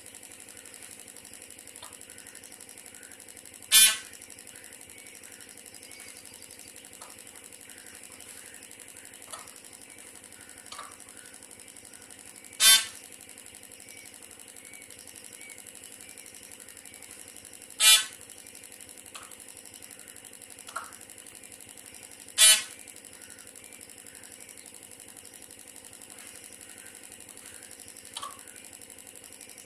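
Peahen (female Indian peafowl) giving short, loud, horn-like honking calls, four of them several seconds apart, over a faint steady hum.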